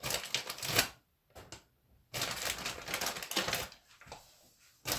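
Plastic bag of frozen tater tots crinkling and rustling as a hand rummages through it, with the tots shifting inside. Short bursts come in the first second and a half, then a longer stretch of rustling from about two seconds in to nearly four.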